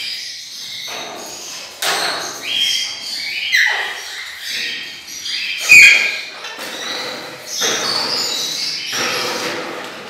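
Caged budgerigars and parakeets chattering and chirping. There is a loud thump about six seconds in.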